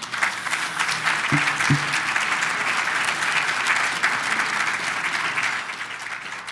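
Audience applauding: a dense, steady clatter of many hands clapping that begins to die down near the end.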